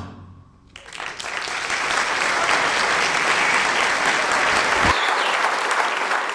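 Theatre audience applauding: the clapping starts about a second in, swells quickly, then holds steady.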